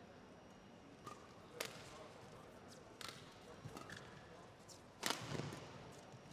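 Badminton rackets striking a feathered shuttlecock during a fast doubles rally: a run of sharp, crisp hits, roughly one a second, with the loudest hit about five seconds in.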